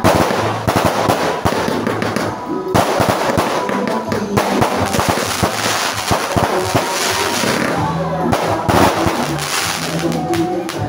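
Ground-launched fireworks going off: a dense, rapid run of crackling bangs that keeps up without a break.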